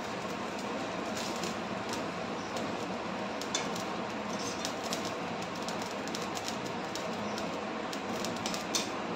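Hilsa fish curry simmering in a metal kadai on a gas stove: a steady hiss, with a few light clicks of a spoon against the pan as gravy is spooned over the fish.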